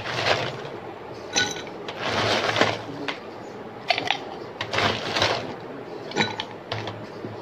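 Ice cubes scooped from a bowl and dropped into clay cups, clattering and clinking in about seven separate bursts, some short and sharp, some a scraping rattle lasting half a second.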